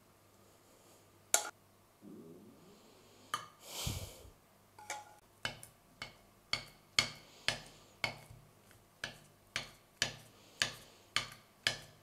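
Metal spoon clicking against a glass baking dish as it is pressed down into buttered cornmeal mash. There are a few scattered clicks and a duller knock about four seconds in, then a regular run of sharp clicks about twice a second.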